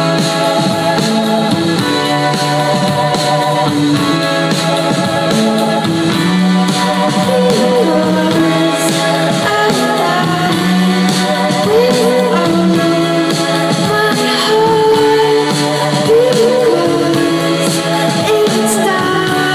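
Live band playing on keyboard, electric guitars and drums, with a woman singing lead into the microphone from about seven seconds in.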